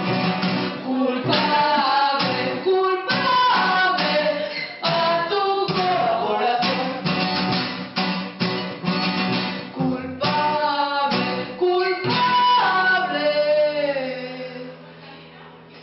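A woman singing to acoustic guitar and cello, a slow song in a small room. Near the end the voice holds a long note that slides down, and the music fades away.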